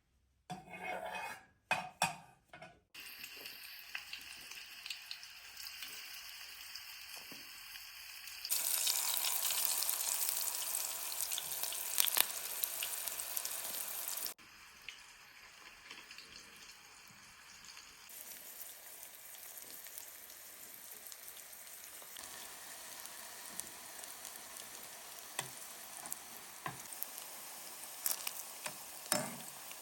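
Food sizzling and frying in a hot pan, with a few short knocks of utensils against the pan at the start and stirring. The sizzle grows louder about a third of the way in and drops back about halfway.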